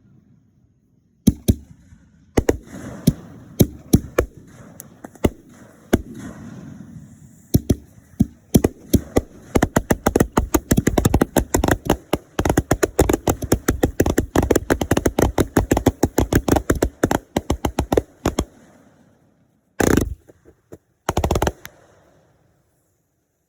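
Aerial fireworks bursting: scattered loud bangs with crackling trails, building into a rapid volley of many bangs in quick succession that stops abruptly, followed by two short bursts of noise.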